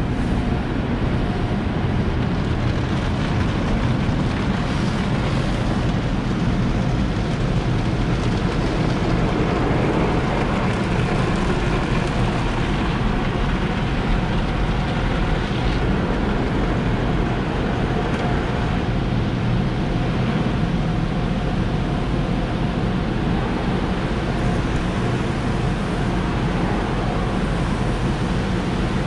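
Jeep SRT's straight-piped V8 exhaust running steadily while driving, with road and wind noise mixed in.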